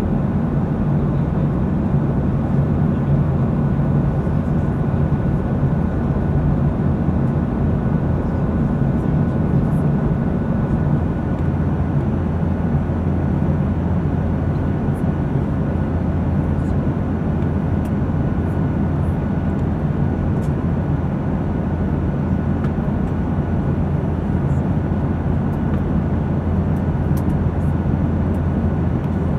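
Steady drone of an airliner in flight heard from inside the passenger cabin: a deep engine and airflow rumble with a faint steady whine above it.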